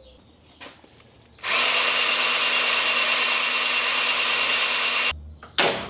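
Cordless drill spinning the oil pump of a Ford 5.0 small-block through the distributor hole to prime the engine with oil. It starts about a second and a half in, runs at one steady speed for nearly four seconds and stops abruptly.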